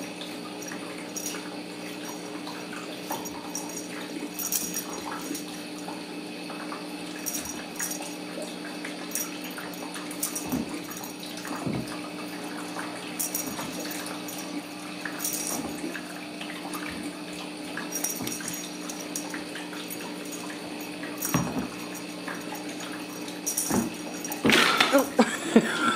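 Steady household hum and hiss with scattered soft rustles and light thumps from kittens playing with a wand toy on a rug. A voice starts near the end.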